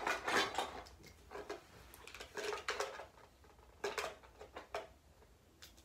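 Plastic toy kitchenware and toys clattering and knocking as a child rummages through them, in several short bursts of clatter.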